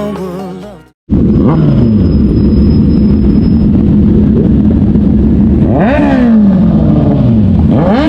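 Sport motorcycle engine revving: the pitch jumps up sharply about five seconds in and again near the end, each time easing off slowly as the throttle is rolled off. Background music fades out just before the engine comes in.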